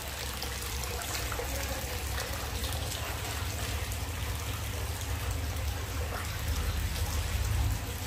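Hot spring water flowing steadily into a rock bath, a continuous trickling splash, over a steady low rumble.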